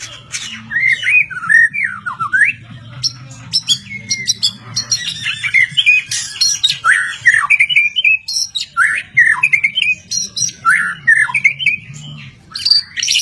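White-rumped shama (murai batu) singing: a rapid, continuous run of varied whistled phrases with sliding notes, broken by short sharp notes.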